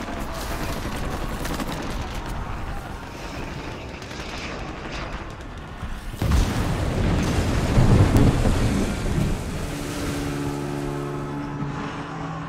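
Film battle sound effects: a steady rushing noise, then a sudden heavy explosion boom about six seconds in that rumbles on for a few seconds. Steady low held tones come in near the end.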